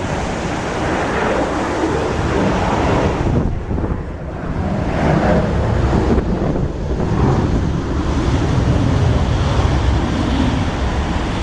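Wind buffeting the microphone in gusts over the steady roar of a Boeing 737-800's CFM56 jet engines.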